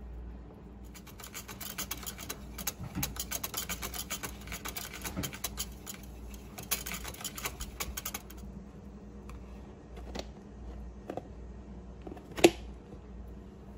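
Wire whisk clicking rapidly against the sides of a plastic yogurt tub as it stirs milk with a spoonful of yogurt starter, for about seven seconds. A few scattered clicks follow, then one loud sharp snap near the end as the plastic lid is pressed onto the tub.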